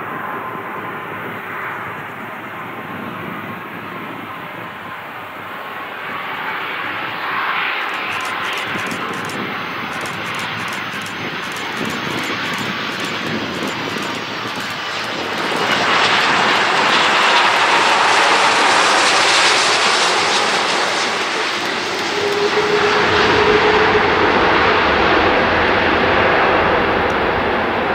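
Airbus A330 jet airliner's engines running steadily on approach, getting louder about halfway through as it passes and touches down. A deeper rumble joins near the end while it rolls out on the runway.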